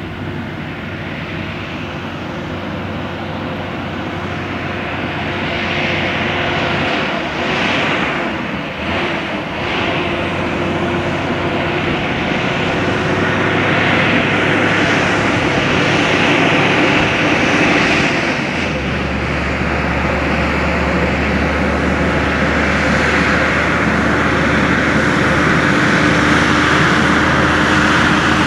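Heavy-haulage truck's diesel engine running steadily with tyre noise, getting louder as it approaches and passes. About two-thirds of the way through, the engine note drops deeper.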